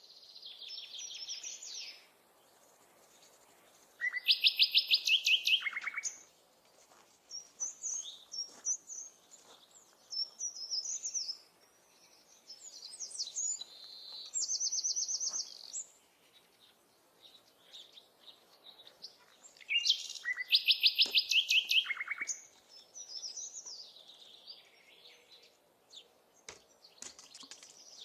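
Wild songbirds singing: a series of short high chirping phrases, the loudest being a fast trill of rapidly repeated notes lasting about two seconds, heard twice, about four seconds in and again about twenty seconds in.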